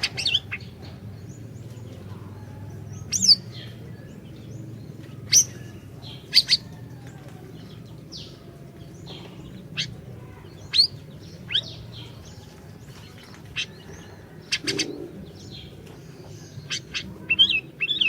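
Siri-siri songbird calling: short, sharp, high chirps that sweep down in pitch, repeated at irregular intervals every second or two, over a steady low hum.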